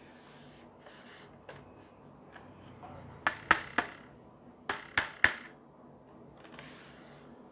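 A long, narrow cardboard box handled in the hands: soft rubbing, then two quick runs of three sharp taps on the cardboard, the first about three seconds in and the second about a second and a half later.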